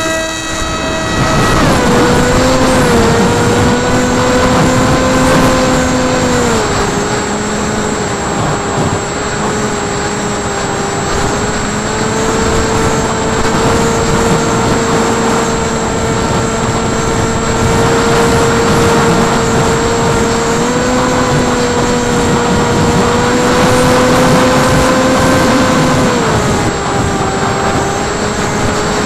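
Electric motor and propeller whine of an FPV aircraft, heard through its onboard camera over rushing air. The whine settles after a throttle-up in the first second or two. It drops in pitch about six seconds in, rises again about twenty seconds in, and drops once more a few seconds before the end.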